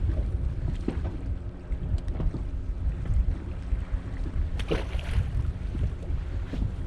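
Wind buffeting the microphone on a fishing boat, with a steady low hum underneath and a few small knocks. There is a brief splash-like hiss about two-thirds of the way through.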